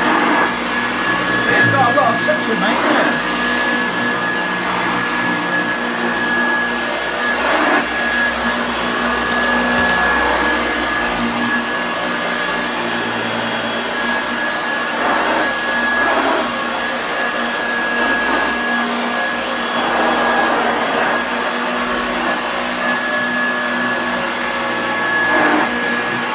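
Hoover Junior 1346A upright vacuum cleaner running, with a steady high whine from its motor. Its sound swells briefly every few seconds as it is pushed back and forth over a thick pile rug at height setting 3, where it is very hard to push.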